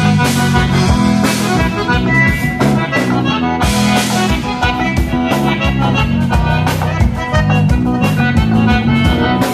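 A live dance band plays an instrumental break, with the accordion leading over bass, drums and guitar in a steady dance beat.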